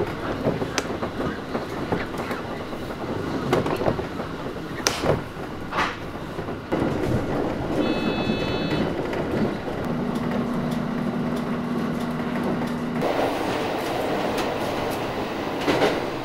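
Train running on the rails, heard from inside the carriage: a steady rumble with the clickety-clack of wheels over rail joints. A brief high ringing tone comes about eight seconds in, and a steady low hum runs for about three seconds from ten seconds in.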